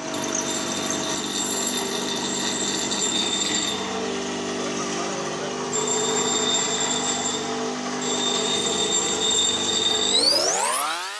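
Power tools running with a steady whine: a pillar drill press, then a handheld angle grinder grinding a small metal rocker-arm part. Near the end the pitch sweeps sharply upward.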